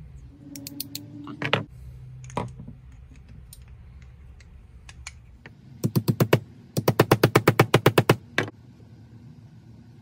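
Small hammer tapping a chainsaw piston's wrist pin into the piston, in quick light strikes. A short run of about six taps comes about halfway through, then a longer run of about fifteen taps at roughly ten a second.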